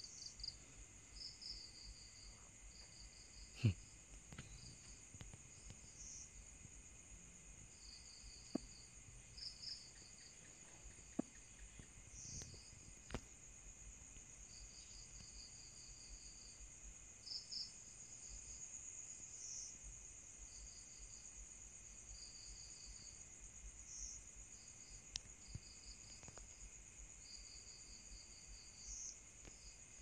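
Faint chorus of night insects: a steady high drone with short, repeated trilling chirps every second or two, and a few scattered clicks.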